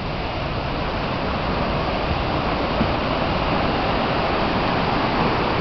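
Mountain stream rushing over rocks, a steady rush of water that grows gradually louder.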